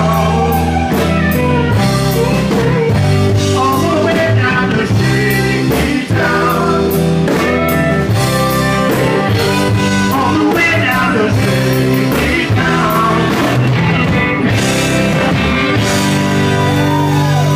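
A live rock band playing a song: electric guitars, keyboard and drums, with lead lines that bend in pitch over a steady bass and drum beat.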